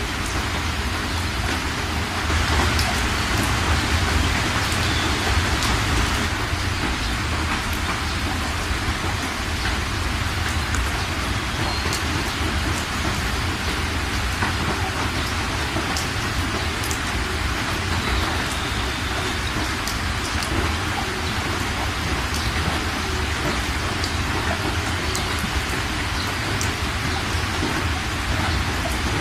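Fast-flowing floodwater rushing and splashing over the ground in a steady wash of noise, a little louder a few seconds in.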